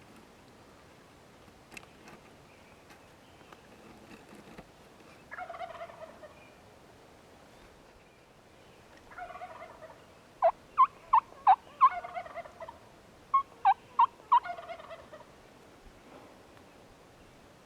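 A wild turkey gobbler gobbles about four times from its roost, each gobble a rattling call that falls in pitch. Between the gobbles come two quick runs of short, sharp notes, five and then three, which are the loudest sounds.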